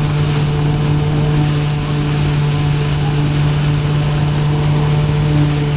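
Threshing machine running steadily while sheaves are fed into it, giving a continuous even hum.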